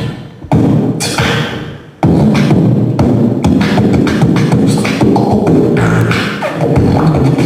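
Human beatboxing into a Behringer XM8500 dynamic microphone: a rhythmic beat of mouth-made drum sounds. The beat thins out for about the first two seconds, then comes back in full.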